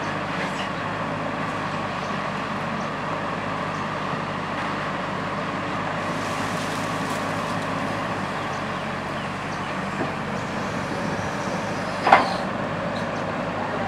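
Kobelco SK120 excavator's diesel engine running steadily as its hydraulic boom and arm are lowered and folded onto the truck bed. A brief sharp burst of noise about twelve seconds in is the loudest moment.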